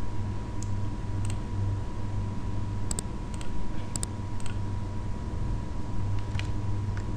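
Scattered sharp computer mouse clicks, about eight in all, over a steady low electrical hum with a faint steady high whine.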